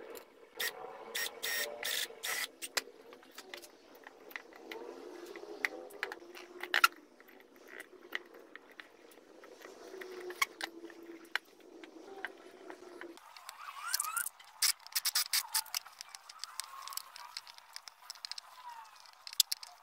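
Wood chisel cutting and paring a pine carving blank by hand: irregular sharp clicks and short scrapes as the blade bites and chips the wood.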